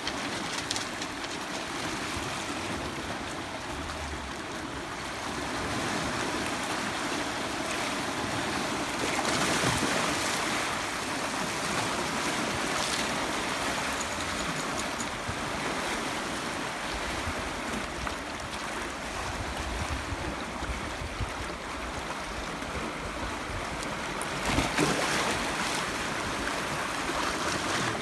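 Steady rushing outdoor noise, swelling about nine seconds in and again near the end.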